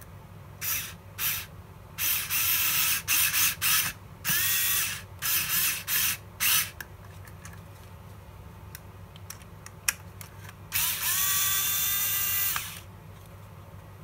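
Small cordless electric screwdriver running in a string of short bursts, then one longer run of about two seconds near the end. Some bursts start with a rising whine as the motor spins up. It is driving a screw into a model part's hole to cut the threads, with a few faint clicks in between.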